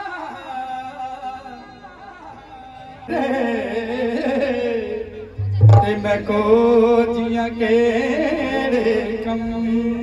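Male singer singing live into a microphone through a stage PA, with band accompaniment. The singing is faint at first and comes back loud about three seconds in, in long wavering notes.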